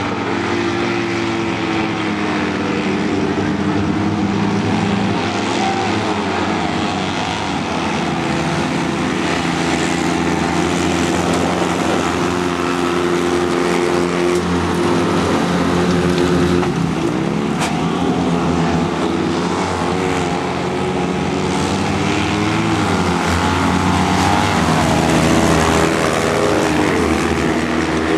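Citroën 2CV autocross cars racing, their small air-cooled flat-twin engines running hard and revving up and down over each other without a break.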